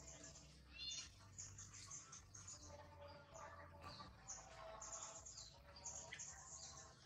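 Faint high-pitched animal chirps and squeaks, many short calls in quick succession, over a faint low hum.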